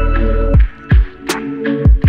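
Background electronic music: a beat of kick drums and sharp hits over held synth notes. A low bass drone drops out about a quarter of the way in.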